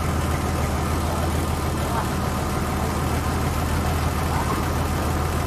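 A small river ferry's engine running steadily underway, a low, even drone with a noisy wash above it.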